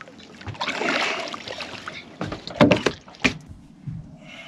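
Water splashing as a hooked spiny dogfish thrashes at the surface beside a fiberglass boat, then several loud sharp knocks and thumps against the boat about two and a half to three and a half seconds in as the shark is landed and handled.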